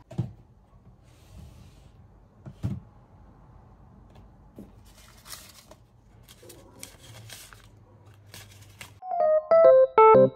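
Small items being handled in a dresser drawer: a few light knocks and some soft rustling. About nine seconds in, electric piano background music starts and becomes the loudest sound.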